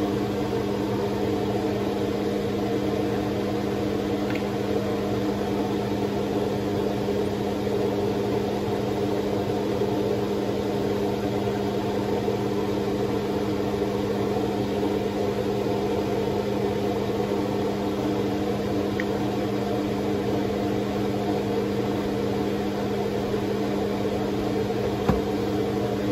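Steady hum of a kitchen fan, with bacon frying in a pan on turned-up heat underneath it.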